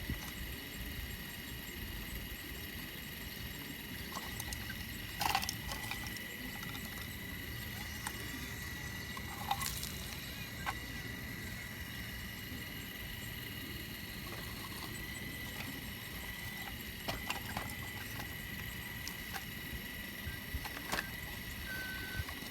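Diesel engine of a Caterpillar digging machine running steadily, with a low rumble and a steady high whine. Scattered clicks and knocks come from shale being dug.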